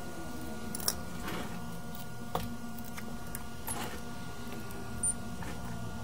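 Steady electrical hum of repair-bench equipment, with a few light clicks and taps as tools are handled on the bench.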